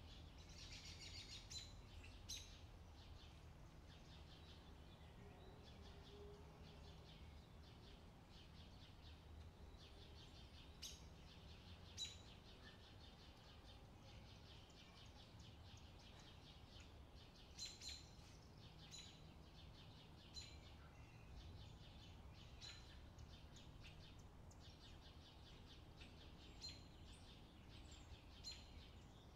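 Near silence: faint scratching of pencil strokes on paper over a low hum, with a few faint, short, high chirps.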